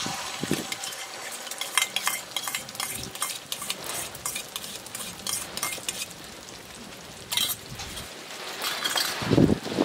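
Beaten egg with chopped onion hits hot oil in an aluminium wok and sizzles steadily, with a spoon clinking and scraping against a steel bowl as the egg is scraped out. A louder knock comes near the end.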